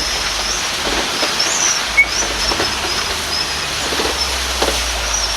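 Steady rumble and hiss of a moving ride vehicle, with light clacks repeating about every half second to a second and a sharp click about two seconds in. Thin, high wavering chirps sound over it.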